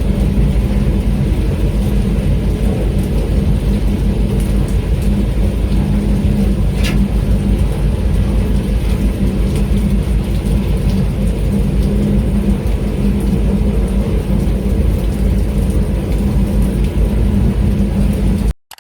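Boat engine running steadily with a low drone, under a constant hiss of falling rain; both cut off suddenly just before the end.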